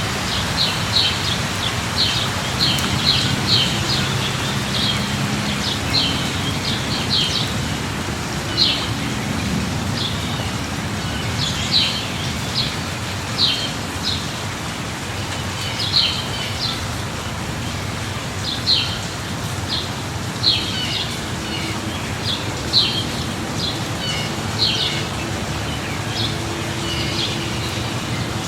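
Steady rain with birds chirping over it: short high chirps, often in quick groups of two or three, every second or two.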